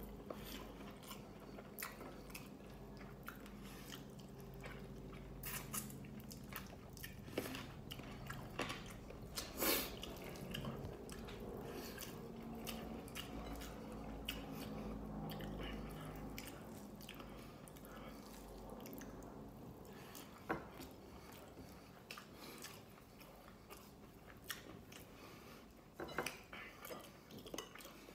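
Close-miked chewing and mouth sounds of a person eating rice with her fingers, with scattered small smacks and clicks. A low steady hum sits underneath and fades out about two-thirds of the way through.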